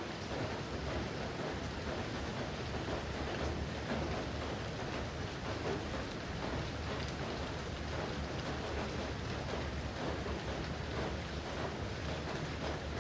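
Steady rainfall, an even hiss of many drops, with a constant low rumble underneath.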